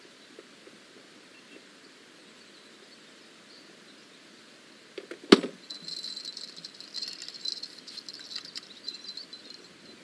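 Quiet riverside ambience with faint high insect chirring. About five seconds in comes a single sharp click, followed by light rustling and ticking under a stronger, steady high insect buzz.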